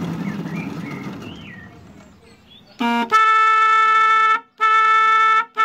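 Miniature railway shunter's running noise dies away over the first couple of seconds, then its horn sounds: a brief toot, two long blasts and a short final toot.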